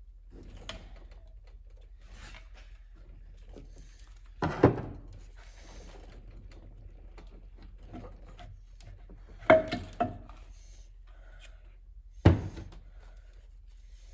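Metal tools and transmission parts knocking on a workbench as a bearing retainer and its shims come off: quiet handling with four sharp clanks, two close together near the middle, one of them with a short metallic ring.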